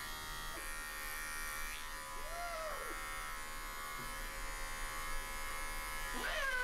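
Electric pet clippers buzzing steadily as they shave the fur between a Maine Coon cat's paw pads. The cat meows twice, once about two seconds in with a rising-then-falling call, and again near the end with a call that slides down in pitch.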